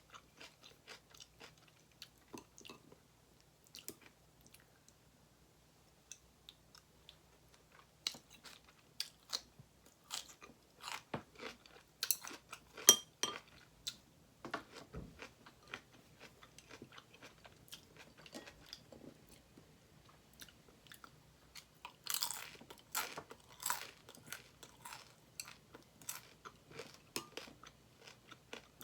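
A person chewing and crunching crisp food close to the microphone: irregular crackling crunches, with louder flurries about twelve seconds in and again a little past twenty seconds.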